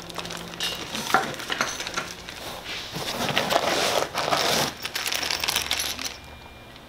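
Small plastic zip-lock bags of parts crinkling and rustling as they are handled and lifted out of foam packing, with scattered small clicks. The rustling dies down near the end.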